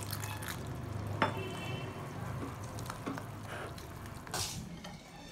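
Fingers stirring gram-flour (besan) and water into a thin batter in a glass bowl: soft, irregular wet stirring noise, with a sharper tap about a second in.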